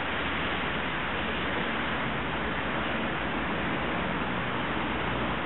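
Steady rushing noise, even in level throughout, with no distinct events in it.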